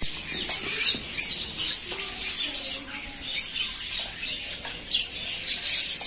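A flock of small birds chirping and squawking, with many short high calls overlapping in quick, irregular succession.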